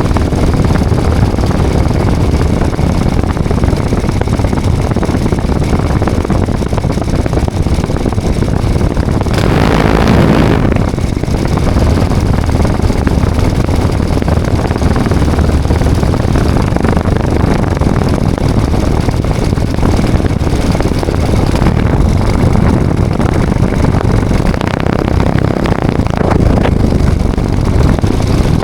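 Radio-controlled model L-19 Bird Dog airplane in flight, heard from a camera mounted on the plane: a loud, steady rush of motor and wind noise. There is a brief louder surge about ten seconds in.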